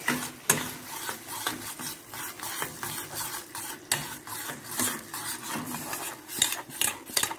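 Metal spoon stirring a thick sauce in a stainless steel saucepan, scraping the bottom and clinking irregularly against the sides of the pan.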